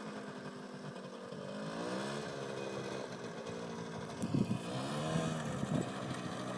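Faint small single-cylinder two-stroke engine of a Suzuki 80 quad running, its pitch rising and falling a few times as the throttle is opened and eased off.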